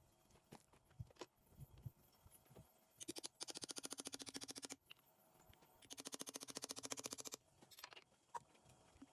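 A power tool run in two bursts of about a second and a half each, with a fast, even rattle. Light clicks and knocks of metal parts and tools being handled come before, between and after the bursts.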